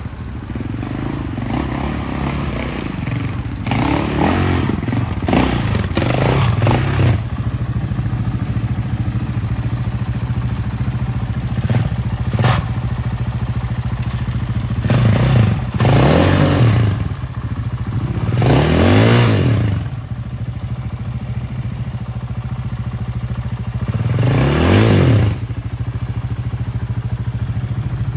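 Dirt bike engine running at a low, steady idle, with repeated short bursts of revving that rise and fall in pitch as the bike is worked over rocks and ledges. Clattering and scraping of the bike on the rocks comes through between the revs.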